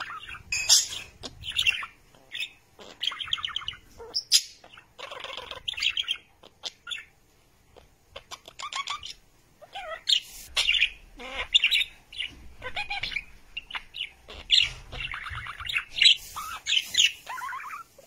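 Budgerigars chirping and squawking in quick, chattering calls, with a short pause about eight seconds in.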